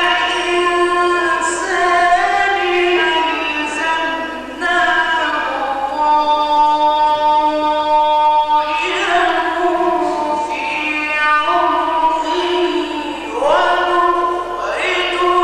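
A male reciter chanting the Quran in the melodic tajweed style, one voice holding long ornamented notes. The longest held note comes about midway, lasting some three seconds.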